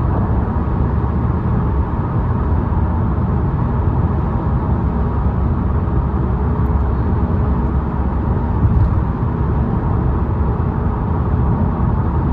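Steady low rumble of a car on the move, road and wind noise from inside the moving vehicle.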